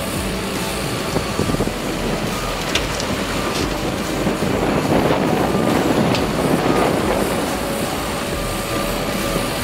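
Giant bucket-wheel excavator at work: a continuous dense mechanical rumble and rattle of the turning wheel and machinery, a little louder in the middle.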